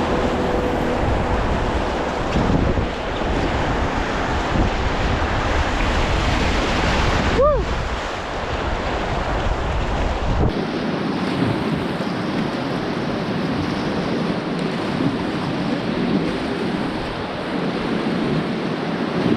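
Steady rush of river water with wind buffeting the microphone. A brief pitched glide cuts through about seven and a half seconds in.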